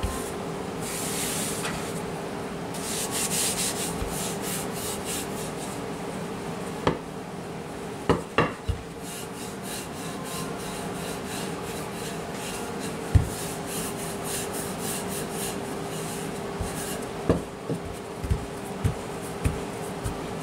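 Wooden rolling pin rolling out pie crust dough on a floured countertop: repeated scraping, rubbing strokes, with several sharp knocks, most of them near the end, over a steady low hum.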